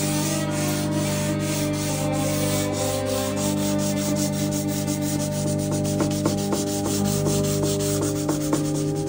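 Charcoal rubbing and scratching across paper in rapid, closely spaced strokes, over soft sustained background music.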